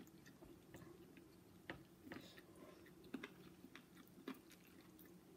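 Faint chewing and soft mouth clicks from people eating, a few scattered ticks over a low steady hum.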